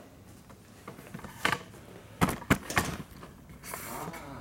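Objects knocking and clattering as a man rummages through cluttered shop stuff: a knock, then a quick cluster of three sharp knocks, followed by a brief scraping rustle near the end.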